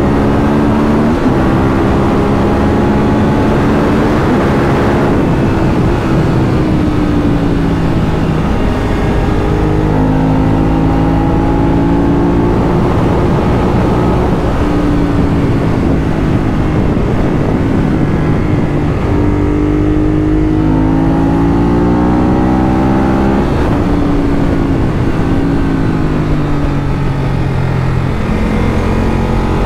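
Ducati Monster 821's Testastretta L-twin engine under hard riding. The revs climb and then drop sharply again and again as it is run up through the gears, easing off and pulling again.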